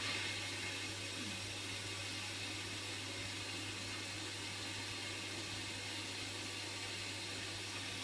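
Hotpoint washing machine starting up again after a quiet pause: steady water rushing through it, with a constant low hum.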